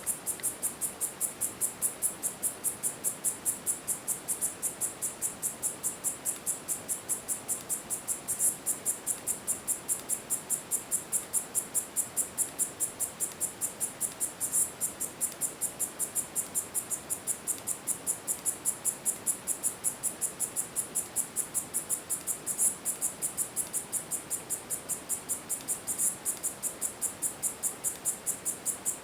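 Male Korean grass cicada (Tettigetta isshikii) calling: a steady, very high-pitched pulsed song of about three to four pulses a second, with a few louder clicks standing out from the series.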